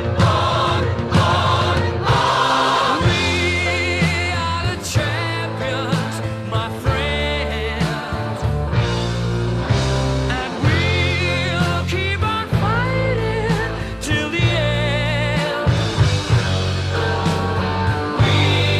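A rock song playing, with a steady bass line under wavering lead melody lines.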